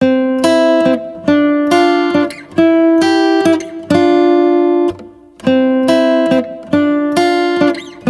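Outro music: a bright melody of plucked-string notes, about two notes a second, with a short dip a little after halfway.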